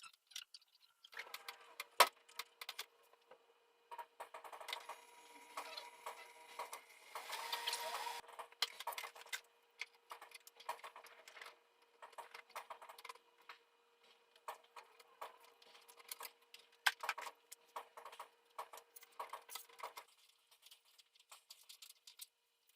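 Light, irregular clicks, taps and knocks of parts being handled during a water fountain replacement, with a sharp knock about two seconds in and a denser rustling stretch a few seconds later. A faint steady hum runs underneath and stops a few seconds before the end.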